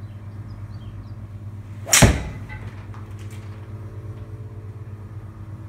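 A golf ball struck once with a 2-hybrid off a hitting mat in an indoor simulator bay: a single sharp crack about two seconds in, with a short ring-out after it.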